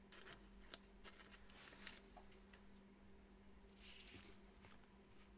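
Near silence: faint rustling and a few light clicks of trading cards being handled, over a steady low hum.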